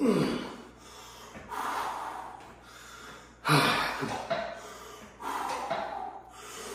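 A man's heavy, forceful breathing: about four loud breaths in and out through mouth and nose, the strongest at the start and about three and a half seconds in, as he psychs himself up before pressing a pair of heavy dumbbells.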